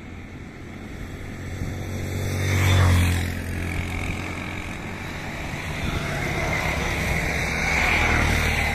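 Engine of a passing vehicle, swelling to a peak about three seconds in as its pitch falls, then a steady low hum that grows louder again near the end.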